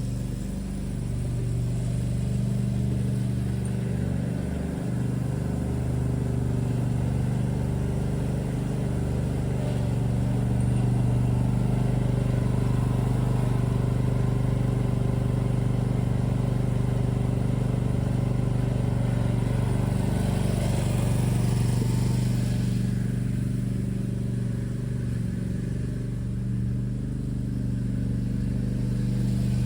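Gravely ZTX-42 zero-turn mower's engine running steadily, a constant low hum with no change in speed.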